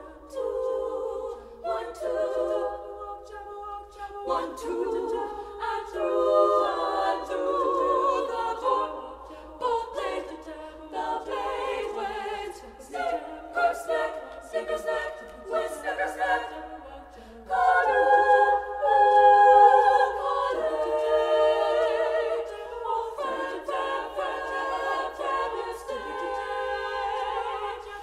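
Women's choir singing a cappella in several-part harmony, in phrases that swell and fade, with a sudden louder passage about two-thirds of the way through.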